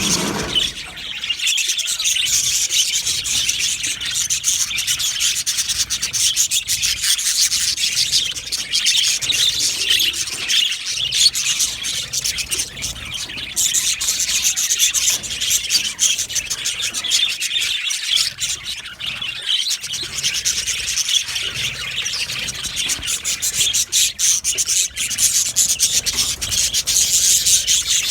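A flock of budgerigars chattering and chirping continuously, a dense scratchy warble full of quick clicks and squeaks.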